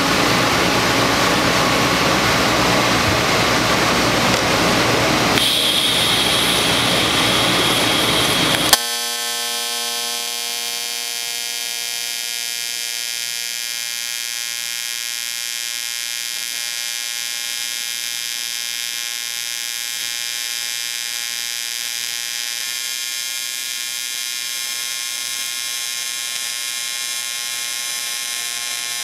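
A loud, noisy hiss for about the first nine seconds, then a sudden switch to the steady electric buzz of an AC TIG arc welding cast aluminium, which holds evenly to the end.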